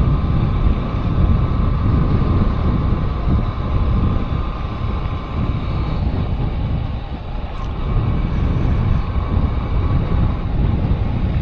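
Wind buffeting the microphone of a moving motorcycle, over a steady rumble of engine and road noise.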